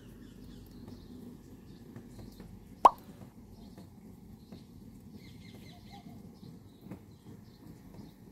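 Rainy outdoor ambience: a low steady background with scattered light drips and one loud single plop of a water drop about three seconds in. Faint bird chirps come and go.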